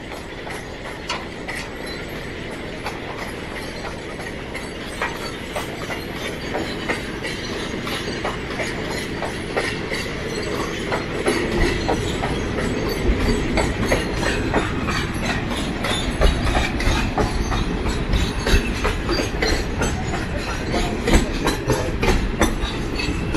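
Steel footbridge deck clanking and rattling under people's footsteps: many irregular metallic knocks over a steady rumble, getting louder and heavier about halfway through.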